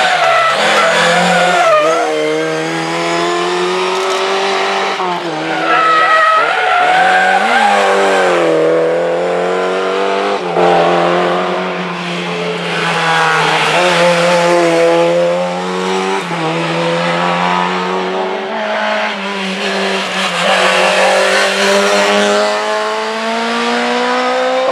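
Rally car engines revving hard as one car after another accelerates through a bend, the pitch climbing and dropping with each gear change.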